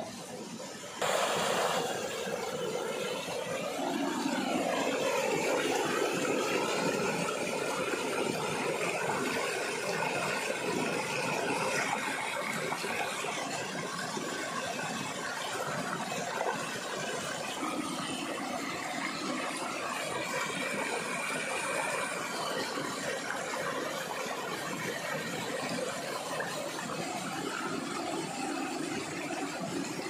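Small waterfall and stream rushing steadily over rocks, starting abruptly about a second in.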